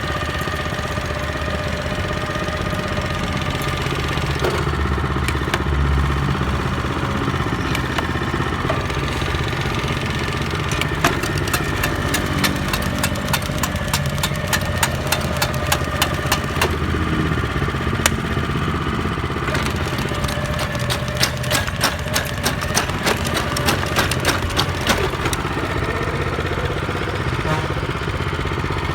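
Used Japanese walk-behind tiller's small engine running steadily, driving the machine slowly in its tilling gear. About a third of the way in a rapid string of clicks and clatter, several a second, sets in over the engine, pauses briefly and runs on until near the end.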